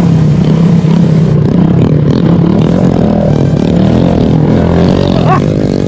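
Honda CG 125 Titan's single-cylinder four-stroke engine running loud with its muffler removed, only the bare pipe left, its pitch rising and falling as the rider works the throttle over dirt, with a sharp rev rising a little after five seconds in.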